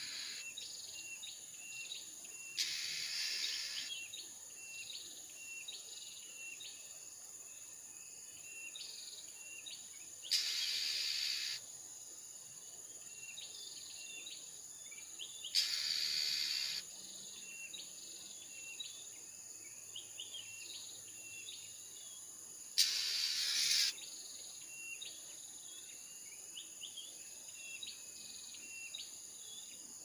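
Insects keep up a steady high-pitched drone while a bird gives short chirps over and over. Four times, a harsh hissing burst about a second long cuts in and stops abruptly.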